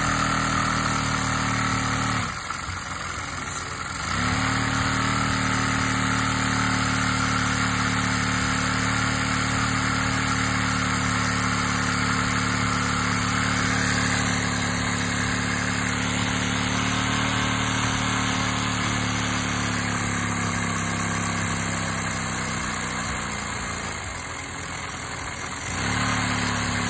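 Household vacuum cleaner running a LEGO vacuum engine that has water inside it: a steady low hum. The hum cuts out for a couple of seconds about two seconds in, then returns. It sags in pitch and level around twenty seconds in, which fits the engine revving down as water is poured down its valve, and it picks up again near the end.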